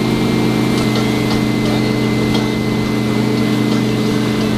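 Supra wake boat's inboard engine running steadily at wake-surf speed: an even, unchanging drone with a faint thin whine above it.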